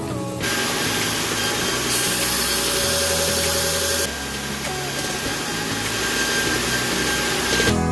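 Steady harsh metalworking noise from a power tool or welder, in three edited stretches with abrupt changes about two and four seconds in, over background music.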